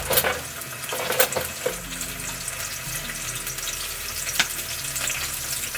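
Onions sizzling in hot oil in a pan, a steady hiss broken by a few sharp clicks of a utensil against the pan.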